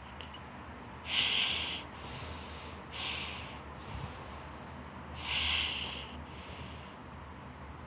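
A six-year-old child snoring in sleep: three noisy, hissing breaths about two seconds apart, the first and last loudest.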